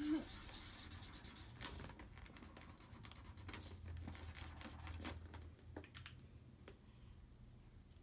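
Felt-tip marker scribbling on paper: quick back-and-forth strokes in the first couple of seconds, then slower, fainter strokes with a few light knocks.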